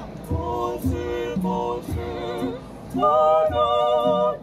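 A mixed choir of male and female voices singing, at first lighter, over a steady low beat about twice a second; about three seconds in the full choir comes in loudly on a long held chord with vibrato.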